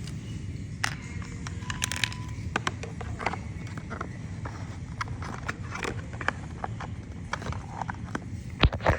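Small plastic toy pieces being handled, with irregular light clicks, taps and scrapes and a louder knock near the end.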